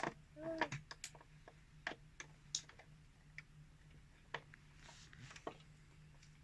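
Light, irregular clicks and taps of a screwdriver working the small screws and plastic battery cover of a remote-control toy car.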